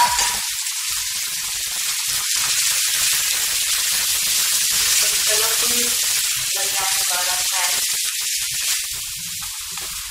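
Diced bell peppers, carrots, corn and beans sizzling in hot oil in a frying pan as they are stir-fried with a silicone spatula. The hiss is steady and eases off a little near the end.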